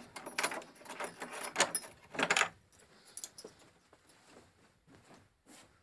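Light clicks and metallic jingling, like small metal objects being handled: dense for the first two and a half seconds, then sparse and fainter.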